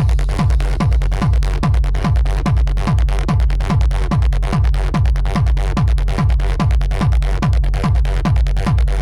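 Hard techno (schranz) track: a steady four-on-the-floor kick drum, each hit dropping in pitch, about two and a half kicks a second, over a constant low bass drone and dense high noise.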